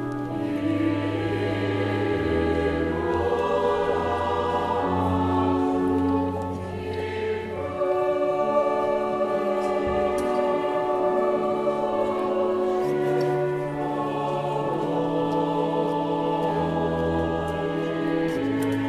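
A choir singing a hymn, accompanied by an 1878 pipe organ playing held chords that change every second or two.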